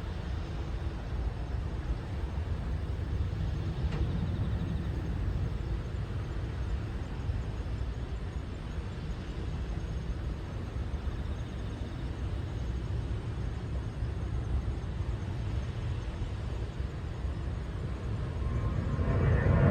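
Steady low outdoor rumble, joined near the end by the swelling roar of an airliner's jet engines on takeoff.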